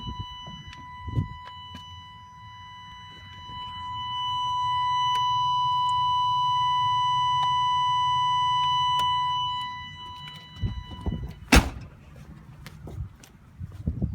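An electronic warning chime sounding one continuous steady high tone, louder in the middle and stopping about eleven seconds in; a sharp click follows shortly after.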